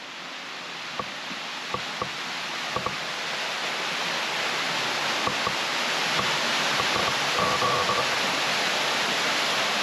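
Running water rushing steadily, growing louder as the microphone is carried closer, with a few light clicks in the first three seconds.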